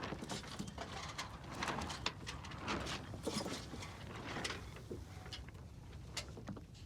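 Wind and water noise aboard a sailboat under way: a steady low rumble with irregular splashes and knocks.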